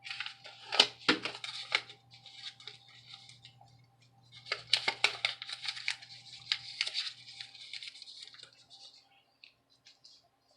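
Paper rustling and crinkling in the hands, with small clicks, in two spells: about the first two seconds, and again from about four and a half to nine seconds in.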